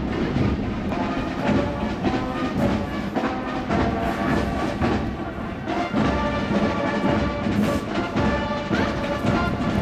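Marching band music with drum beats, playing continuously.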